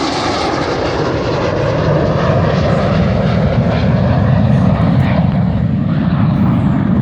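Jet noise from the Red Arrows' BAE Hawk T1 jets flying overhead. A loud, deep roar grows about two seconds in and holds, while the high-pitched hiss fades away.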